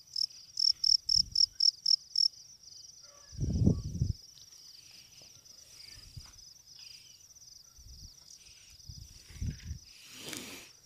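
Field cricket chirping loudly at close range, about four chirps a second, breaking off after about two seconds. Fainter crickets keep chirping behind it. There are a few low thumps and rustles as a hand works the ground near the cricket's hole.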